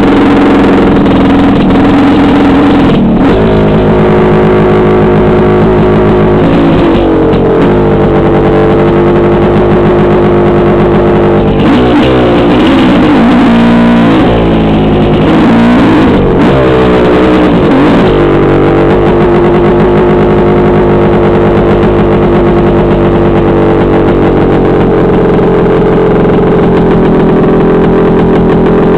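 Dirt bike engine running close to the microphone as it is ridden along a trail, steady for long stretches, with the engine speed rising and falling several times around the middle.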